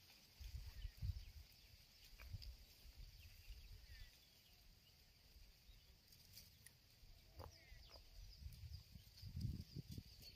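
Near silence: faint outdoor ambience with a steady high hiss and intermittent low rumbles, strongest near the end, and a few faint short chirps.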